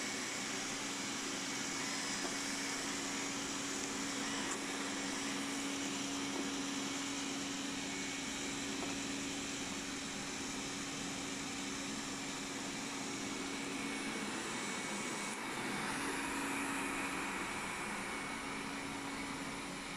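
Xiaomi Mijia 1C robot vacuum running: a steady whirring rush from its suction fan over a constant low hum.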